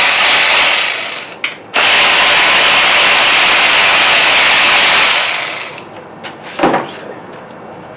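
Power tool running in two bursts, a short one at the start and a longer steady one of about three seconds that trails off, as the cylinder-head bolts are run back out of a small-block Chevy 350.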